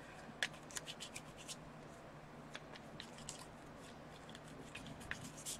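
A deck of Exploding Kittens playing cards being shuffled slowly by hand, heard as faint, irregular soft clicks and rubbing of the cards.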